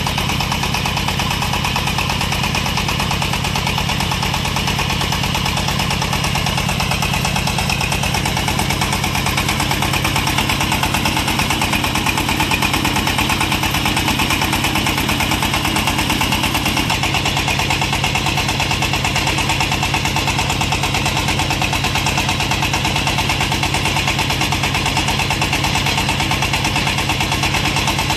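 Engine of a small portable water well drilling rig running steadily with an even, rapid beat, driving the rig as it drills.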